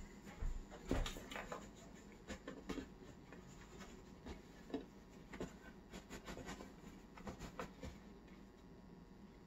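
Hands rolling and folding bread dough on a floured wooden board: faint, irregular soft pats, taps and rustles, with a few low thumps in the first second.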